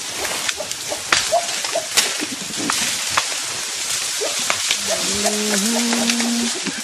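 Dense forest vegetation rustling and twigs snapping as eastern lowland gorillas move through it and pull at stems: a steady leafy hiss with sharp cracks. About five seconds in, a low held call steps up slightly in pitch and lasts over a second.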